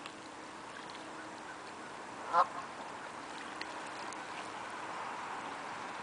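A Canada goose gives a single short honk about two and a half seconds in, over a steady background hiss.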